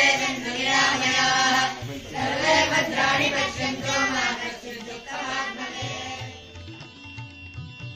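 Devotional singing of a Sanskrit hymn in a Carnatic style, fading out about six seconds in. Quieter instrumental music follows near the end.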